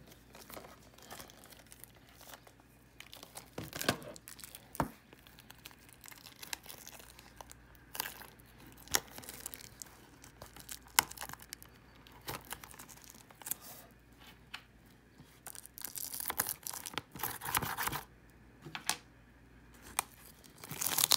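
Plastic shrink-wrap being torn and peeled off a Blu-ray case: crinkling and tearing film with scattered sharp clicks of the case being handled, and a longer spell of crackling about three-quarters of the way through.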